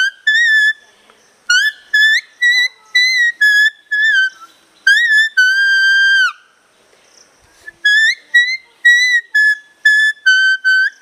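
Leaf whistle, a mature leaf held to the lips, playing a melody in clear, high whistling notes. The notes are short, each scooping up into its pitch. About five seconds in comes one long held note, then a short pause before the tune resumes.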